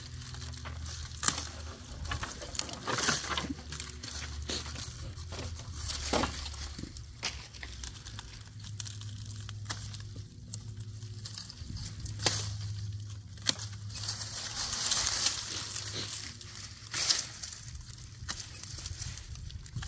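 Hand pruning shears snipping through grapevine canes, several sharp clicks spread out over the seconds, with dry leaves and cut vines rustling and crackling as the canes are pulled and handled.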